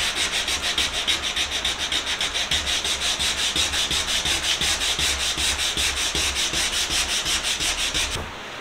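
Sandpaper rubbed by hand over the wooden body of an antique spirit level, a scratchy rasp in quick, even back-and-forth strokes that stops about eight seconds in.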